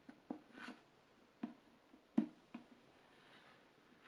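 Faint handling sounds of cord being pulled tight around a book: a few soft rustles and light knocks, the strongest about two seconds in.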